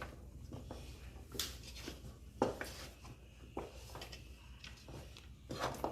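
A cooking spoon knocking and scraping against a pot as thick ogbono soup is stirred, with separate short knocks about once a second over a low steady hum.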